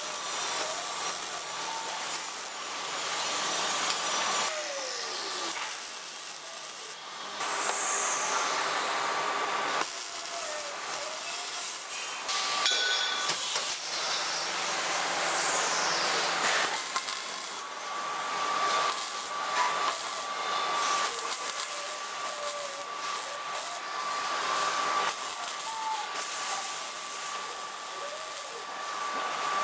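MIG/MAG welding arc on steel pipe: a steady crackling hiss that breaks off and starts again several times.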